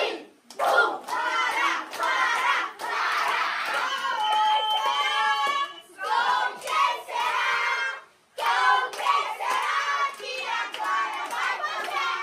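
A group of children shouting together over hand clapping, with a brief pause a little after the middle.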